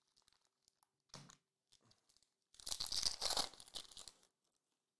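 Foil wrapper of a 2021-22 Recon basketball card pack torn open by hand: about a second and a half of crinkling, ripping foil, starting a little past halfway.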